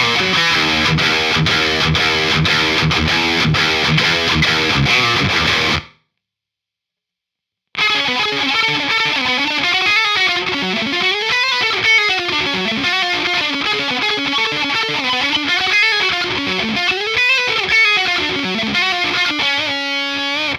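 High-gain distorted electric guitar through the Acheron amp simulator plugin: an evenly pulsed chugging riff that stops about six seconds in, then, after a short silence, a lead line of notes sliding up and down, ending on a held note.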